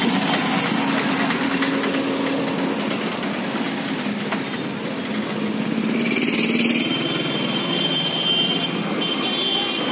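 Busy street traffic: nearby vehicle engines, auto-rickshaws and motorbikes, idling and running steadily, with short high-pitched tones about six seconds in and again near the end.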